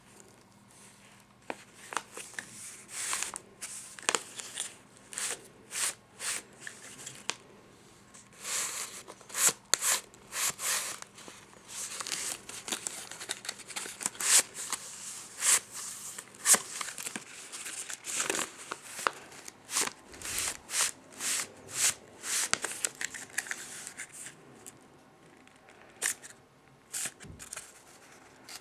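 Paper being handled: crinkling and tearing in many short, irregular rustles.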